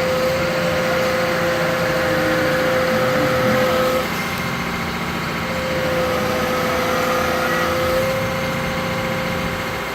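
Komatsu PC238 excavator running as it works its Rototilt tiltrotator, with a steady high whine over the engine. The whine breaks off about four seconds in and comes back about a second and a half later.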